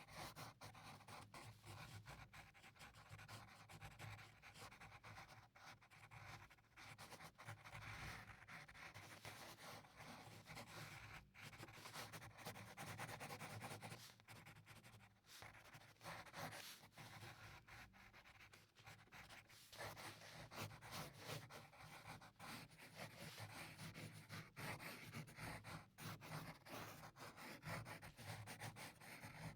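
Pencil scratching on paper in a steady run of short, quick strokes, as in drawing or writing; faint.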